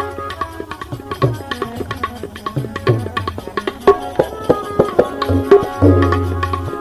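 Instrumental break in a Gujarati devotional bhajan, with no singing. A hand-drum rhythm of sharp strokes, some deep strokes falling in pitch, plays over steady held melody notes.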